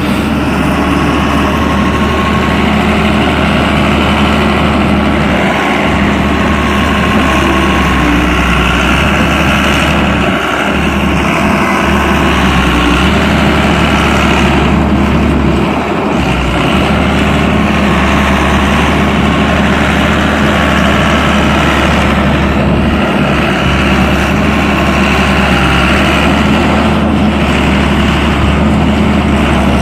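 Doosan D140W wheeled excavator's diesel engine running steadily, a loud, even low hum.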